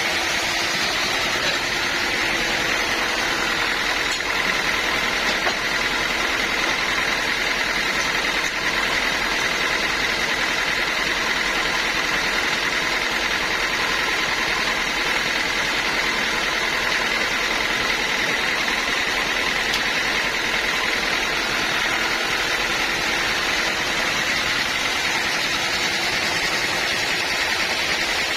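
Sawmill machinery running steadily with an even, continuous mechanical noise.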